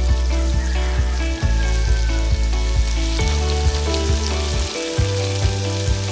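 Background music with a steady beat and a bass line, over a steady sizzling hiss.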